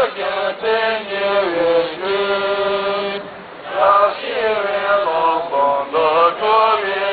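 A melodic mantra chanted by a voice over a low steady drone, in long held notes with sliding pitch. The phrases are broken by short pauses a little past three seconds in and again past five seconds.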